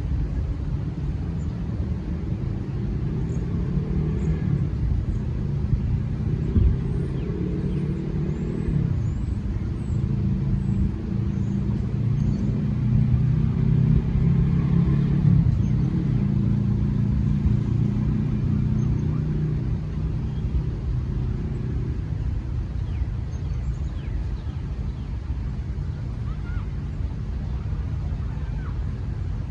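Low engine hum of a motor vehicle, pitched and steady, growing louder toward the middle and fading after about twenty seconds.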